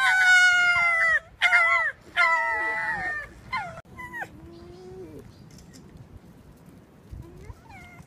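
Red fox calling: about five loud, drawn-out cries in the first four seconds, each dropping in pitch at its end, then one lower, quieter call and little more.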